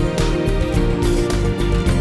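Background music with a steady beat and plucked guitar.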